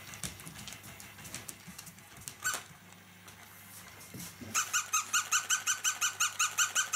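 Battery-powered toy puppy yapping: a rapid, evenly repeated high electronic yip, about five a second, starting about four and a half seconds in. Before it, faint clicks and one short squeak.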